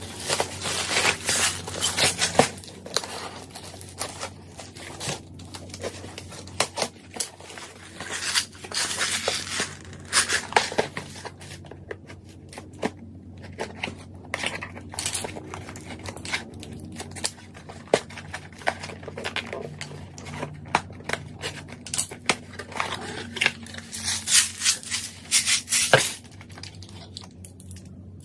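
Handling noise: packaging rustling and crinkling, mixed with irregular sharp metallic clicks and clinks from handled metal parts, in uneven flurries.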